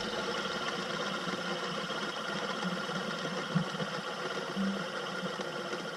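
Fidget spinner spinning freely on its ball bearing, a steady whir, with one faint tick about three and a half seconds in.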